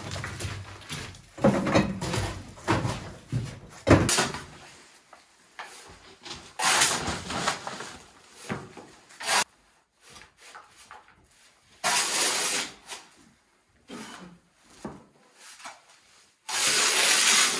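Rough scraping and rubbing as plaster rubble is scraped up and cleared from a floor, with a few knocks in the first few seconds, then separate scraping strokes about a second long with pauses between.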